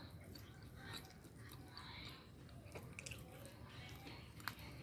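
A cat chewing fish: faint, wet chewing with small clicks and crunches, and one sharper click about four and a half seconds in.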